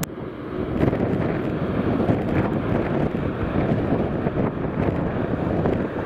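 Strong gusty wind buffeting the microphone over the rumble of a Boeing 737's jet engines as the airliner rolls out on the runway after landing.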